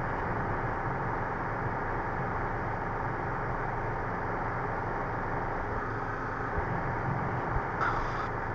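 Steady in-flight cabin noise of a Guimbal Cabri G2 helicopter, its Lycoming four-cylinder piston engine and rotors running at cruise, with a faint steady whine over a low hum. A few light knocks come in the last couple of seconds.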